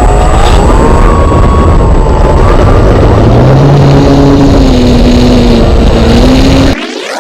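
Electric motor and propeller of an Apprentice 15e RC trainer plane running, a steady whine whose pitch wanders up and down with the throttle, over heavy wind rumble on the onboard camera's microphone. The sound breaks off abruptly near the end.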